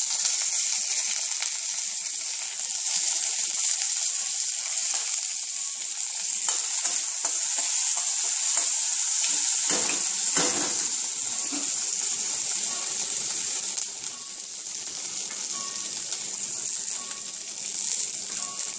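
Green chillies, curry leaves and mustard and cumin seeds sizzling in a little hot oil in a wok: a steady high frying hiss. About halfway through a spoon stirs them briefly.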